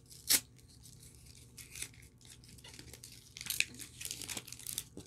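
Chocolate bar wrapper being torn open and crinkled by hand in irregular short rustling bursts, with one sharp loud crackle about a third of a second in.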